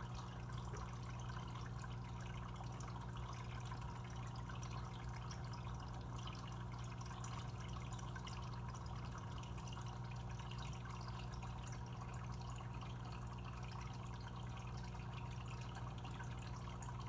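Aquarium filter running: a steady trickle of water over a constant low hum from the pump.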